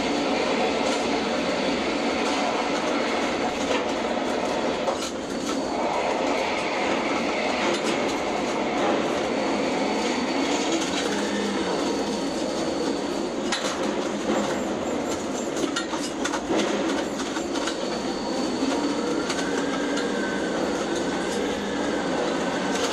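Ship-to-shore container crane's hoist machinery running steadily as the spreader is lowered into and raised from a ship's hold: a continuous rattling mechanical clatter, with a faint wavering whine near the end.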